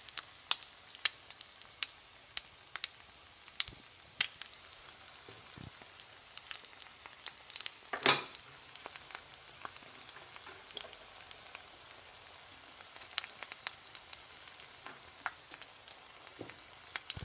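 Egg frying in oil in a nonstick pan: a faint steady sizzle with frequent sharp pops and spits of hot oil, and one louder burst about eight seconds in.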